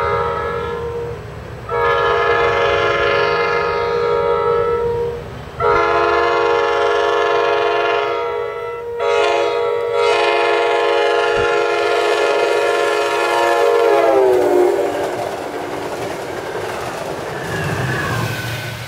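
MARC cab car's Nathan K5LA five-chime air horn: a brief blast, then two long blasts, a short one and a long one, the grade-crossing signal. The pitch drops as the cab car passes about fourteen seconds in. Then the passenger coaches rumble and clatter past on the rails.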